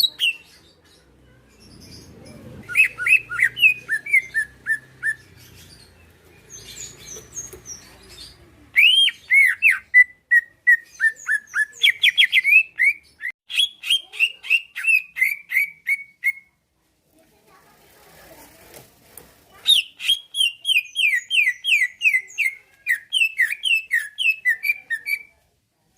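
Greater green leafbird (cucak ijo) singing in three long bursts of quick, repeated whistled notes, each run stepping down in pitch, with short pauses between bursts.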